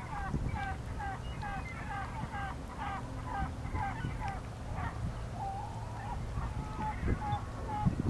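Gulls calling in a long run of short, repeated notes, two to three a second, over a low wind rumble on the microphone.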